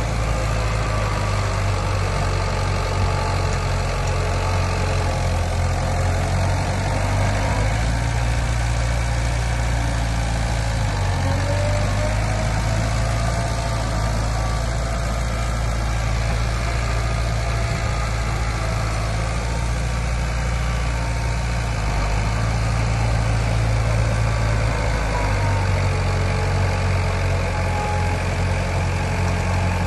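Heavy diesel engine of earthmoving machinery running steadily at a low, even speed. Its note shifts slightly a few times as the load changes.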